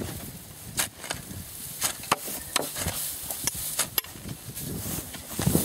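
A shovel chopping and scraping into earth and grass roots while a post hole is dug out: irregular sharp scrapes and knocks, about one or two a second.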